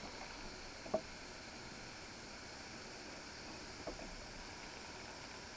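Butane torch with a ceramic hot-air tip hissing steadily, with a couple of faint clicks.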